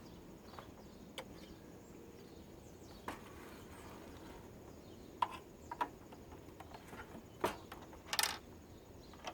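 A few scattered light clicks and taps of small parts and tools being handled during a teardown, over a faint steady background; the loudest comes about eight seconds in.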